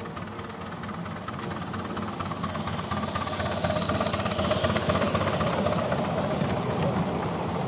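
Miniature live-steam locomotive running with hissing steam, growing louder over the first few seconds and then holding steady.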